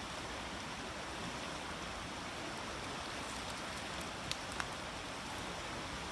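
Small creek's running water, a steady rushing wash. Two short sharp clicks about four seconds in.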